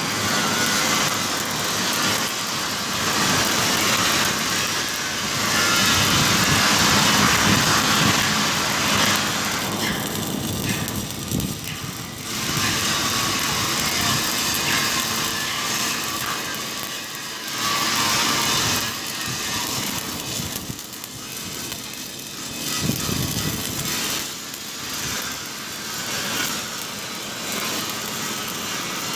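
Stick-welding (shielded metal arc) arc crackling and hissing steadily as a bead is run along a horizontal seam on a steel tank, the noise swelling and dipping in loudness.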